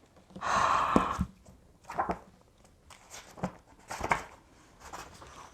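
Rustling of paper and packaging, followed by a few light taps and knocks as a book box set and its inserts are handled.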